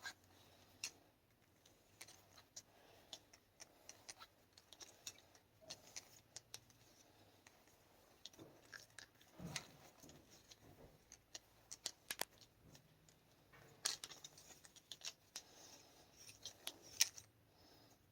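Tubing cutter being turned around a copper pipe, its wheel scoring the pipe with faint scraping and scattered sharp clicks as the cutter is snugged up after each rotation.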